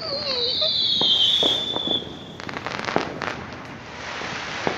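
Fireworks going off: a high whistle slides down in pitch over the first two seconds. Scattered pops and a stretch of crackling follow, with a sharp bang near the end.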